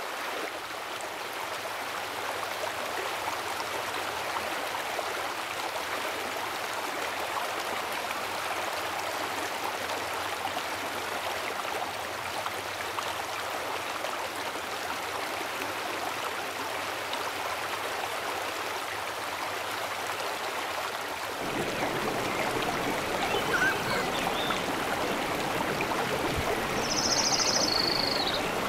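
Rushing river rapids: a steady wash of white water that becomes fuller and deeper about three quarters of the way in. A brief high chirp sounds near the end.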